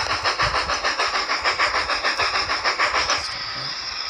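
Simulated steam locomotive sound from a phone throttle app: fast, even exhaust chuffs at high throttle. A little after three seconds in, as the throttle comes back to zero, the chuffing stops and a steady hiss is left.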